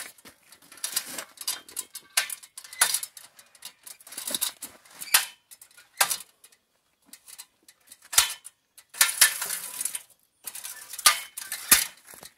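MOR 16-rung articulated aluminium multi-purpose ladder being folded and repositioned by hand: its aluminium rails and hinge joints clank and click, an irregular run of sharp metallic knocks with short stretches of rattling and scraping between them.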